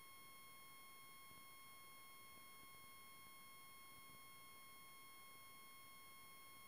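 Near silence apart from a faint, steady high-pitched electronic whine with overtones that never breaks or changes.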